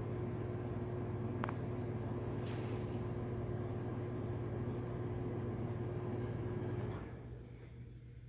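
A steady low machine hum that drops away about seven seconds in, with a short click about a second and a half in.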